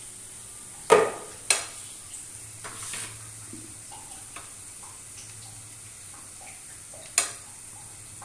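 Onion, ginger and garlic masala sizzling softly in oil in a steel kadai, stirred with a spatula, with three sharp metallic clinks against the pan: two about a second in, half a second apart, and one near the end.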